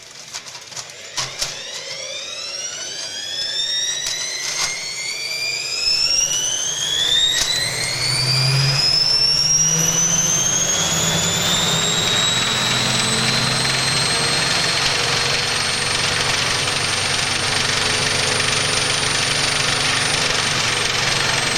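Washing machine motor spinning its drum up to extreme speed: a whine rises steadily in pitch for about twelve seconds and then holds at top speed, with a rushing noise that grows as it speeds up. A few sharp clicks come in the first couple of seconds.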